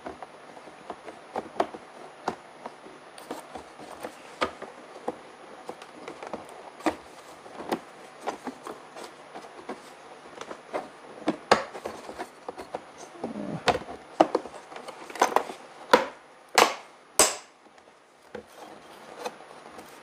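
Hard plastic clicks and knocks as the brush guard is handled and fitted back onto the underside of an upright vacuum cleaner, with a few louder sharp snaps near the end.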